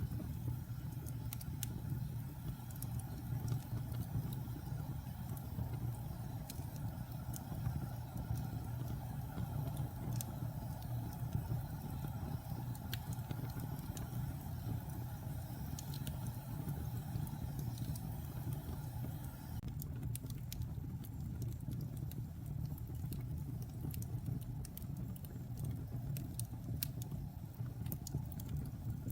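Fire burning with a steady low roar and irregular crackles and pops.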